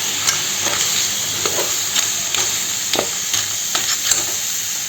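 Crab pieces frying in a pan of onion-tomato masala, sizzling steadily as they are stirred, with scattered sharp clicks of the spoon against the pan.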